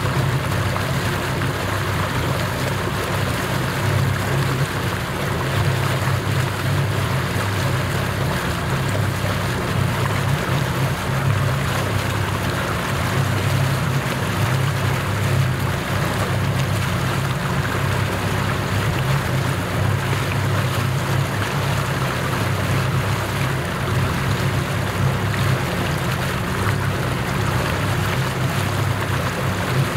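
Motorboat engine running steadily under way, a constant low hum with the rush of water along the hull.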